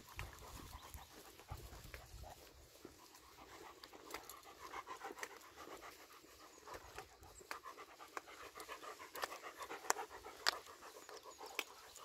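A dog panting steadily and faintly, with scattered light clicks.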